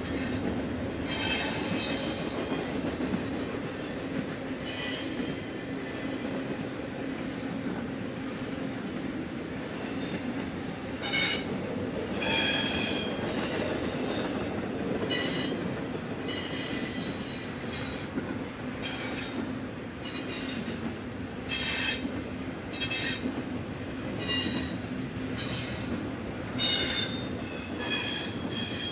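Double-stack intermodal freight train rolling past with a steady low rumble, its wheels squealing in short, high-pitched bursts every second or two.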